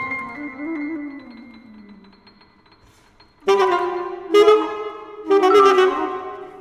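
Saxophone in contemporary chamber music: a low note bends downward and fades almost to nothing over about two seconds. After a short pause, three loud accented saxophone notes follow about a second apart, each dying away.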